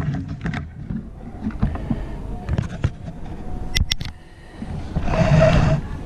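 Handling noise of a plastic USB charger adapter, charging cable and power strip on a desk: scattered clicks and taps, with a louder scraping rustle lasting about a second near the end.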